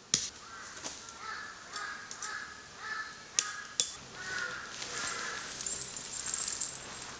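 Birds calling in short, harsh, repeated calls, with a few sharp knocks in between: one at the start, one about a second in, and two around three and a half seconds. A thin high tone sounds through the second half.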